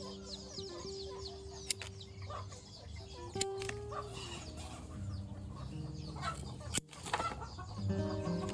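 Background music with long held notes, mixed with birds calling in short chirps.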